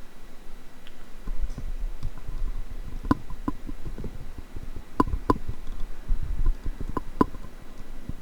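Small metal lock pins and parts being handled, with sharp light clicks in pairs about three, five and seven seconds in over a low rustle of handling.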